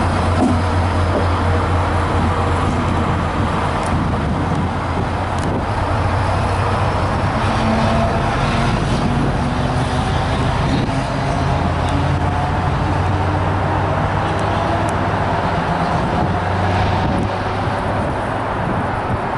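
Class 70 diesel locomotive running light engine, its GE PowerHaul diesel engine running steadily as it passes and moves off. A deep low drone throughout, with a faint whine slowly rising in pitch.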